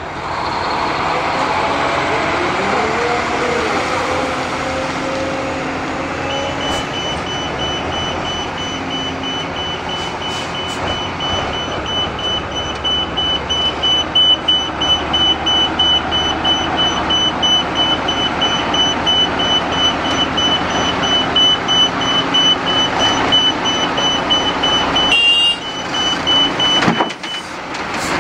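Liebherr R 946 crawler excavator's diesel engine running under load as it digs and swings, its pitch rising and falling in the first few seconds. From about six seconds in until near the end, a reversing alarm beeps steadily over the engine.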